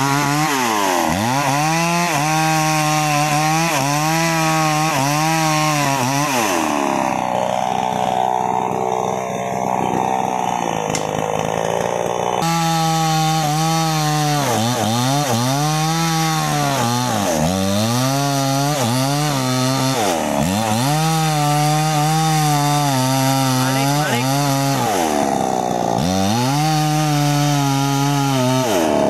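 New West 628 two-stroke chainsaw running at high revs as its chain cuts into a sengon tree trunk. The engine note sags and recovers again and again as the chain bogs in the wood.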